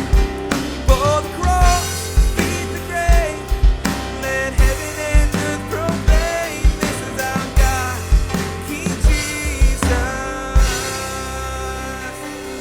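Live worship band playing the song's closing bars on drum kit and piano, with a steady beat that ends in a final hit about ten seconds in, left to ring and slowly fade.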